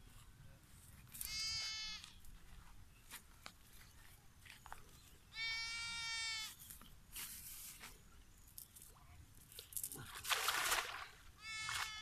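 An animal calls three times, each call a steady, even-pitched cry lasting under a second to over a second. Shortly before the last call there is a loud splashing rush as the thrown cast net lands on the shallow pond.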